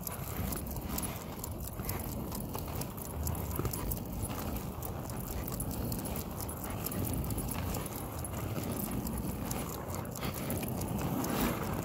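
A Cane Corso panting as it trots on a leash over pavement, with a steady run of paw and footstep sounds.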